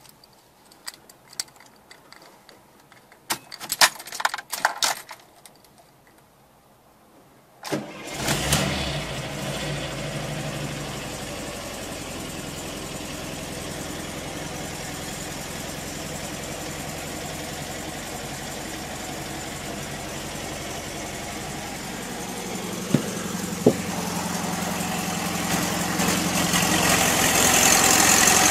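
Keys rattling and a few clicks, then, about eight seconds in, the 1978 VW Transporter T2's 1.6 air-cooled flat-four engine starts from cold: a brief crank, it catches with a quick rise, and it settles into a steady idle. Two sharp clicks come later, and the engine grows louder near the end.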